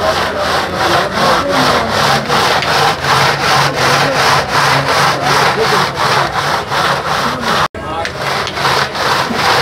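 Hand-made sheer yakh being churned: a metal pot turned in crushed ice while a spatula scrapes the freezing milk mix against its inside wall, a rhythmic grinding scrape at about four strokes a second. It breaks off for an instant near the end.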